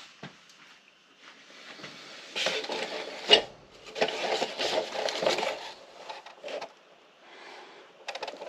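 Rubbing and scraping in two stretches, with one sharp click a little past three seconds in.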